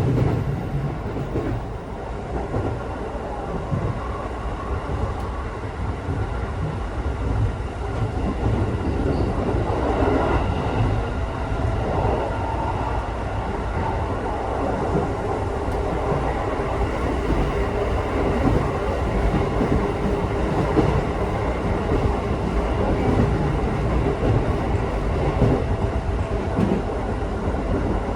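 Electric local train running on the rails with steady wheel-on-rail rumble, a faint motor whine and light clickety-clack, heard from inside the car as it nears a station.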